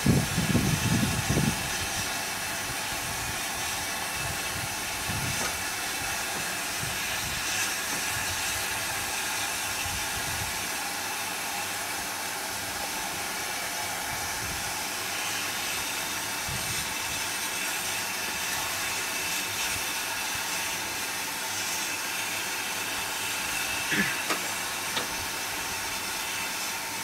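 Steady hiss of steam in the cab of steam locomotive No. 40, with a brief low rumble in the first second and a half.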